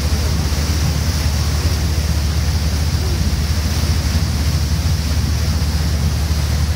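Steady low rumble of a river cruise boat's engine under way, mixed with the rushing hiss of its churning wake.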